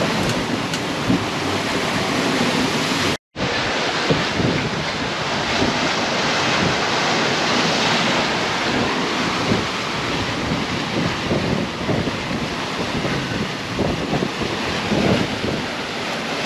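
Rough sea rushing and breaking around a sailing yacht under way, with strong wind buffeting the microphone. The sound drops out for a moment about three seconds in.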